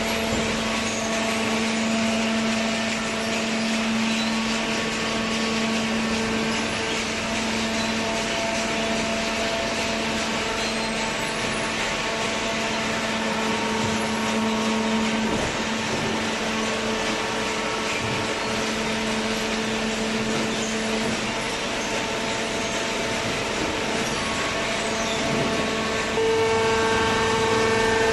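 Kraft paper baler machine running, a steady mechanical hum with a noisy whir over it. About 26 seconds in it grows louder and takes on more tones, as if working under heavier load.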